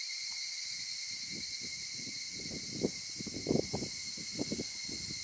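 Steady insect chorus: several insects singing constantly at a few high pitches, with faint irregular low knocks and rustles underneath.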